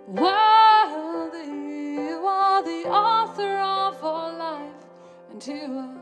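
Slow worship song: a female voice sings drawn-out phrases over sustained keyboard chords, dropping back briefly about five seconds in before the voice comes in again.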